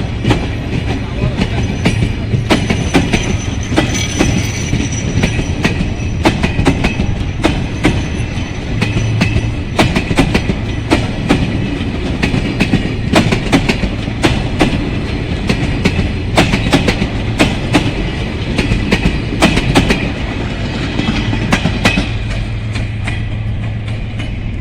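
Railway cars rolling past with a constant clatter of wheels over rail joints, over a steady low hum; the clatter thins out near the end.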